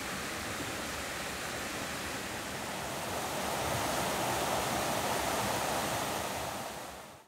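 Stream water rushing steadily over small rocky cascades, growing louder about three seconds in, then fading out quickly near the end.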